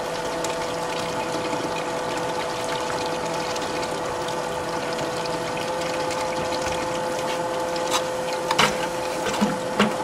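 Water running steadily through the GOLDROP gold separator's funnel and feed tubing, with a constant hum under it. A few light clicks come near the end.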